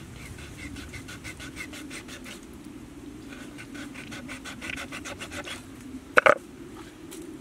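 A knife sawing into raw pig leg skin in two runs of quick, repeated strokes, several a second, followed by one sharp loud knock near the end.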